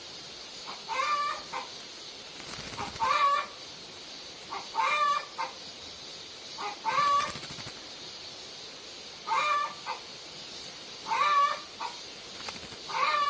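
Domestic fowl calling over and over: short pitched calls about every two seconds, seven in all, over a faint steady hiss.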